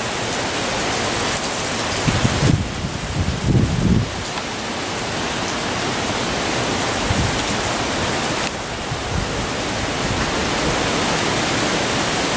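Hurricane-force wind and rain: a steady rushing noise of rain and wind through the trees, with two louder low gusts about two and three and a half seconds in.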